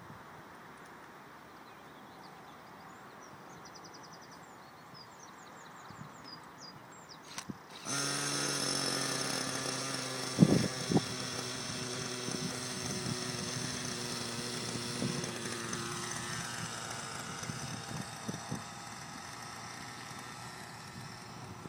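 Raptor 30 V2 nitro model helicopter's glow engine starting suddenly about eight seconds in and then running at a steady pitch, with two sharp knocks a few seconds after it starts.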